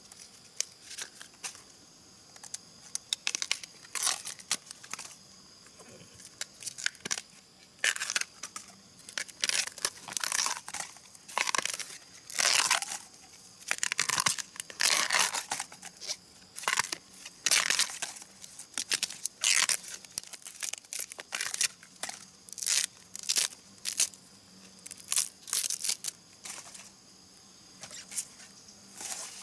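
Bamboo shoot sheaths being torn off by hand: a run of irregular tearing and crackling strokes, roughly one a second, over a faint steady high-pitched drone.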